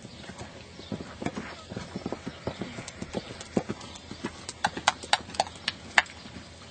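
Hoofbeats of a ridden horse moving around a dirt arena, a run of dull strikes. Several sharper, louder strikes come near the end.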